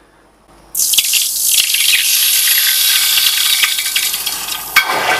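Hot fine silver casting quenched in a bowl of water, sizzling with a loud, steady hiss of boiling water and steam that starts suddenly under a second in; a single light tap of the tongs near the end.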